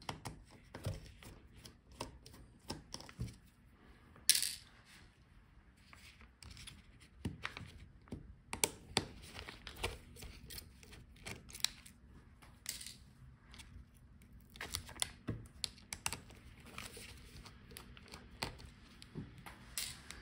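Small scattered clicks and ticks of a precision screwdriver turning out the screws of a laptop's metal hinge bracket, with the sharpest click about four seconds in.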